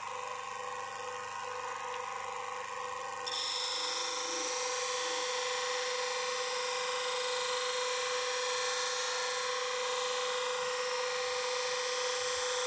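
Dick bench grinder running with a steady hum. About three seconds in, a cleaver blade is pressed against its felt polishing wheel charged with paste, adding a steady, louder rubbing hiss as the edge is polished.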